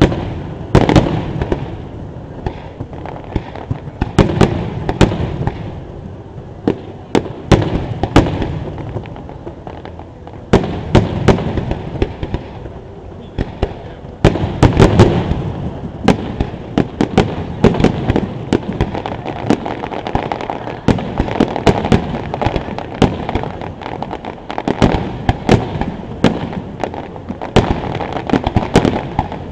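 Aerial fireworks shells bursting close to the launch site: a run of sharp, loud bangs over a continuous low rumble. The bangs come faster and denser in the second half, turning into rapid crackling.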